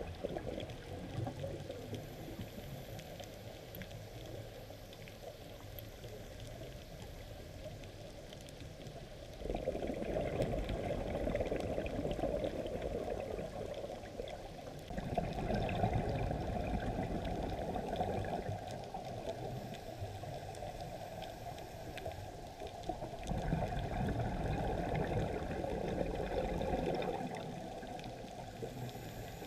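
Muffled underwater bubbling and gurgling that swells in long stretches about ten, fifteen and twenty-four seconds in: a scuba diver's exhaled bubbles from the regulator, heard through the camera's waterproof housing.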